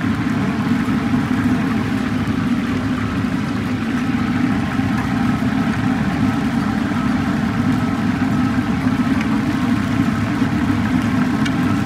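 Chicken pieces deep-frying in a large pot of bubbling oil, sizzling steadily over a constant low rumble.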